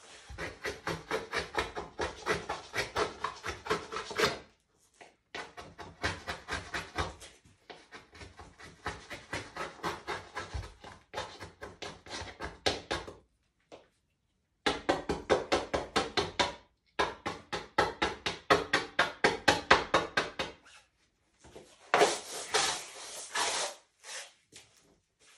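Pencil scribbling hard back and forth on a bare plywood panel in quick rubbing strokes, about five a second. The strokes come in runs of two to five seconds with short pauses between them.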